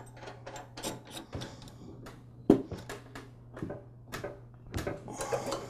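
Light metallic clicks and taps, irregular and a few each second, of a nut being fitted by hand onto the tiller's transmission pulley shaft. One sharper click comes about two and a half seconds in, over a faint low steady hum.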